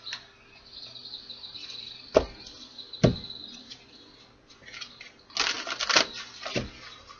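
Tarot cards being handled: two sharp taps of the deck, then a quick flurry of cards being shuffled, and a last tap.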